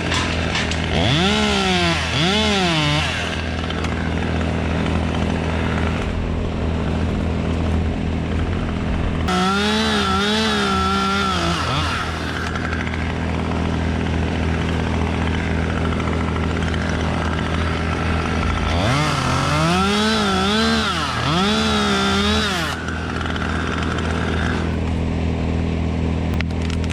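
Chainsaw idling, revved up three times for a few seconds each as it cuts, the engine pitch rising and sagging under load before it drops back to idle.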